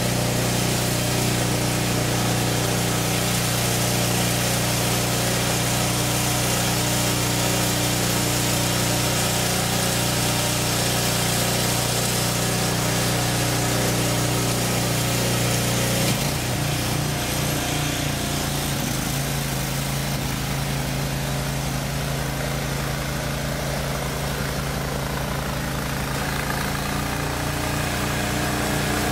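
Gasoline snow blower engine running steadily while throwing snow. About halfway through its note shifts and it runs a little quieter.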